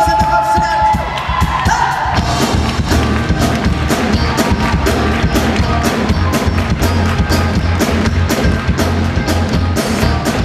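Live pop band playing with a steady drum beat, the audience cheering over it; a sung note is held for about the first second.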